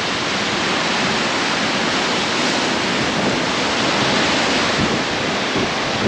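Hurricane-force wind blowing steadily, a loud even rushing noise like a jet plane taking off.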